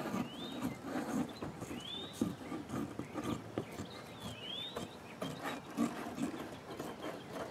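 Window screen mesh and scissors being worked against a cardboard box: soft rustling and scattered light clicks. Three short, high, rising-and-falling chirps sound about two seconds apart.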